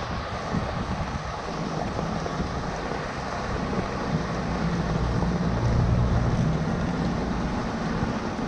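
Rainwater rushing and gurgling into a curb drain grate as leaves clogging it are pulled out by hand, with splashing from the hand in the water. The flow swells a little louder around the middle.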